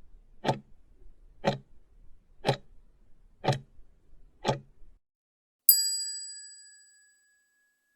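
Quiz countdown-timer sound effect: five clock ticks a second apart, then a single bell ding that rings out and fades over about a second and a half, marking that the answer time is up.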